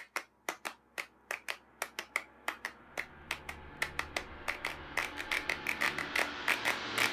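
A train of sharp clicks in an uneven rhythm, about three a second at first and coming closer together toward the end, over a low hum that slowly grows louder.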